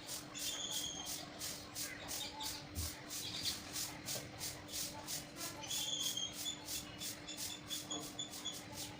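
Early-morning birds chirping: runs of short, repeated high chirps. Behind them is a fast, even high-pitched pulsing, about four pulses a second, with a faint steady hum underneath.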